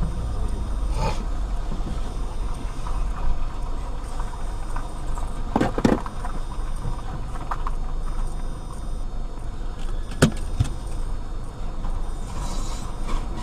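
Steady low rumble of a car heard from inside the cabin, with a few sharp clicks or knocks, the loudest about ten seconds in.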